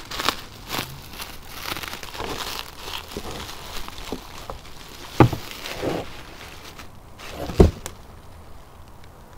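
Plastic bubble wrap crinkling and rustling as a new UV lamp is unwrapped by gloved hands, with two dull knocks, the second the loudest, about halfway and three-quarters of the way in. The crinkling dies down near the end.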